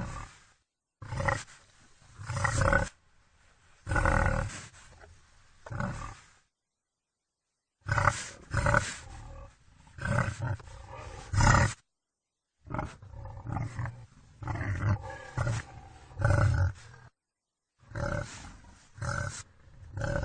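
Wild boar vocalising: a run of short, loud guttural calls, roughly one a second, broken by a few stretches of dead silence between spliced recordings.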